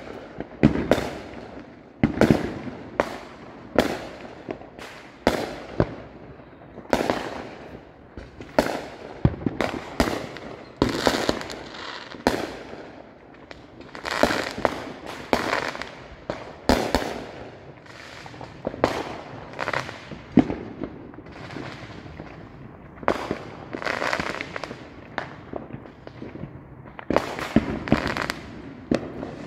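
Aerial fireworks going off in a steady run of sharp bangs, about one to two a second, many of them followed by crackling as the bursts spread.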